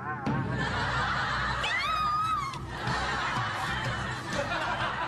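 Audience laughter. A high-pitched voice rises and falls above it briefly about two seconds in.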